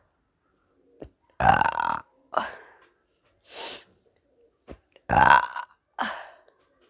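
A woman burping after drinking soda. There are two long, loud burps, about a second and a half and five seconds in, each followed by a shorter burp, with a short breathy hiss between them.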